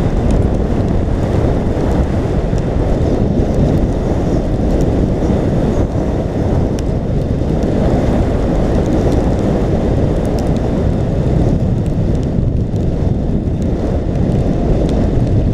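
Wind buffeting the microphone of a camera carried on a moving bicycle: a loud, steady low rumble, with a few faint scattered ticks above it.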